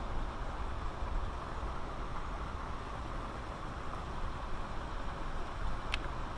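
Steady rushing of flowing river water with a low rumble underneath. A single sharp click sounds near the end.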